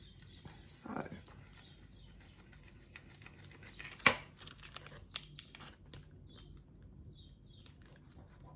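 Faint crinkling and small taps of vinyl lettering and its transfer tape being handled and pressed down onto a wooden surface by hand. One sharp click about four seconds in.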